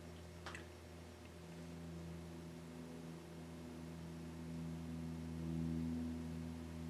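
A steady low hum made of a few held tones, growing a little louder past the middle, with one faint click about half a second in.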